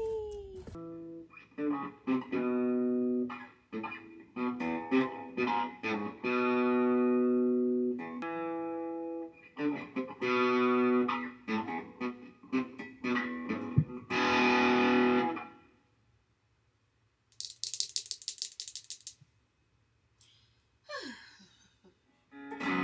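Electric guitar played through an amplifier: a run of clean, ringing notes and chords that stops about fifteen seconds in, followed after a pause by a short scratchy rattle of high noise.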